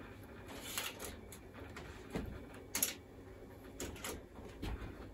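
Light plastic clicks and knocks from a CD being loaded into a first-generation iMac G3's tray-loading CD-ROM drive: about half a dozen short clacks spread over a few seconds, the sharpest just before the middle, over a faint steady hum.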